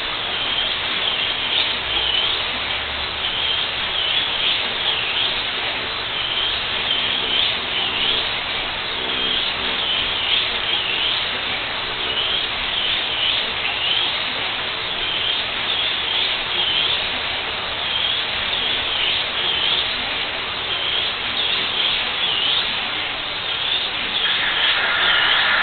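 HO-scale Super Stock slot car's tiny electric motor whining as it laps a plastic track, the pitch dipping into the corners and climbing again on the straights, over and over. Near the end a steady, higher tone joins in.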